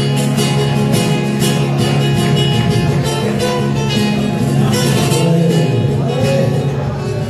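Flamenco acoustic guitar playing fandangos: quick strummed strokes over ringing bass notes.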